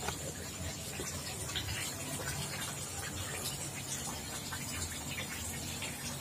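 Steady water noise in a tilapia pond: many small pops and splashes as the tilapia feed at the surface, over a low steady hum.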